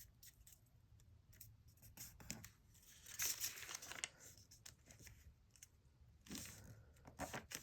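Paper being folded and creased by hand: faint rustling and crinkling in short bursts, loudest about three seconds in and again near the end.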